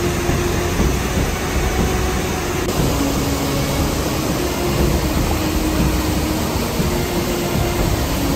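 Mountain stream rushing and cascading over boulders, a loud, steady rush of white water.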